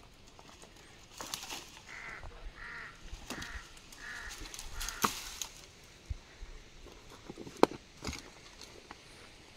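A bird calls four times in an even series, about two-thirds of a second apart. Footsteps crunch over dry twigs and stones throughout, with a sharp snap near the end as the loudest sound.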